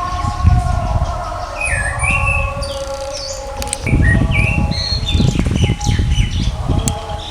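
Orange-headed thrush singing: a quick run of varied short, sweet phrases that jump in pitch, with a low rumble underneath.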